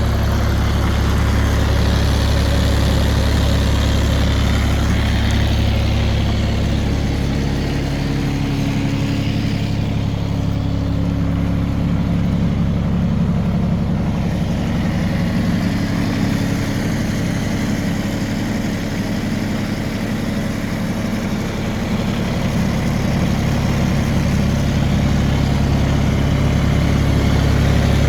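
2017 ASV RT-30 compact track loader's diesel engine running steadily and smoothly, its low note shifting for a while in the middle before settling back.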